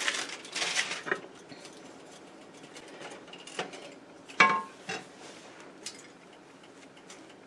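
A wooden spoon turning over cooked rice in an enamelled pot: soft scrapes and a few knocks against the pot, the loudest with a brief ring about four and a half seconds in. The rice is done and is being fluffed before serving.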